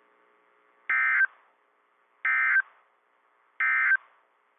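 Three short bursts of NOAA Weather Radio SAME digital data tones, about a second and a half apart: the end-of-message code closing the severe thunderstorm warning.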